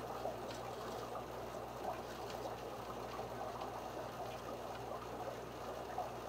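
A few faint, scattered clicks of a pudding Djungarian hamster nibbling food in wood shavings, over a steady watery background hiss and a low hum.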